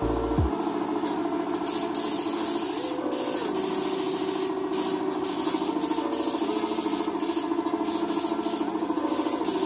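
Gravity-feed paint spray gun hissing as it sprays silver paint, the hiss breaking off briefly a few times, over a steady hum.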